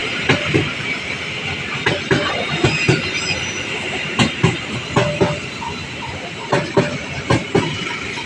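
Train passing, its wheels clacking over rail joints in closely spaced pairs of knocks, over a steady rush of running noise.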